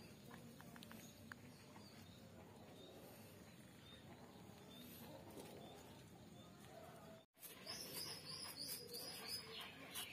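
Faint outdoor ambience with small birds chirping repeatedly in the background. There is a brief dropout about seven seconds in, after which the chirping becomes busier, with scattered soft clicks.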